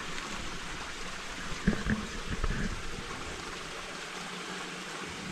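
Steady rushing and trickling of a small stream, with a few dull thumps about two seconds in.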